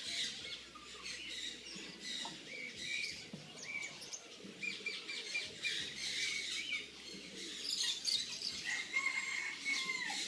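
A bird chirping and whistling: a rapid run of short chirps and squeaks, then a longer level whistle near the end that drops in pitch as it stops.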